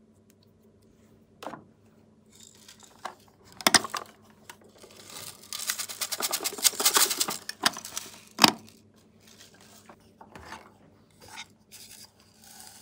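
Small hard plastic toy pieces handled by hand: scattered sharp clicks and knocks, with a stretch of dense crackly rattling in the middle.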